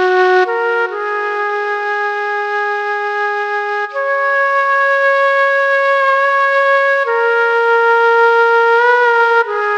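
Background music: a slow melody of long held notes that change pitch every second or few, with a slight waver near the end.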